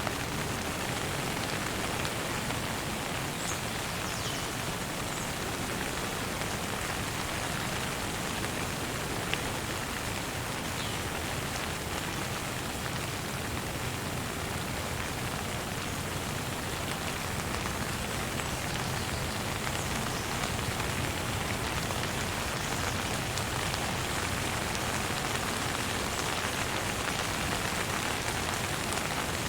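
Steady, gentle rain falling, an even hiss of many drops with a few faint individual drop ticks.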